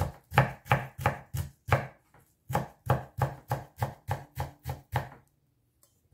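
Kitchen knife slicing fresh ginger into julienne on a wooden cutting board, each stroke knocking on the board about three times a second. The strokes break off briefly about two seconds in and stop about five seconds in.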